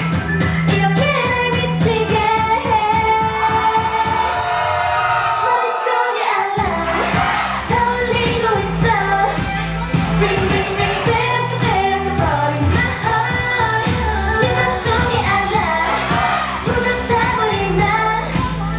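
K-pop dance track with female vocals singing over a pop beat. The bass and beat drop out for about a second around six seconds in, then come back in.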